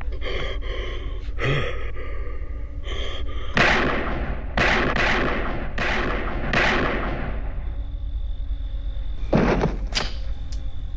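Film soundtrack: a handgun fired several times in quick succession, shots about a second apart, each ringing out in the hallway, followed near the end by two loud crashes.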